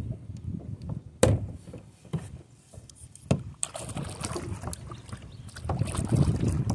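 Two sharp knocks in the first half, then a double-bladed kayak paddle dipping into the water and splashing with each stroke from about halfway through.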